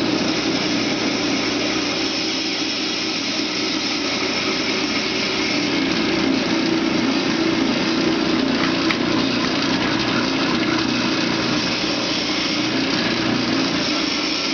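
Hercules block ice shaver running steadily, its electric motor turning a block of ice against the shaving blade.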